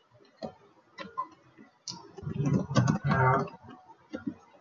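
Typing on a computer keyboard: a run of scattered keystroke clicks, with a louder, voice-like murmur about halfway through.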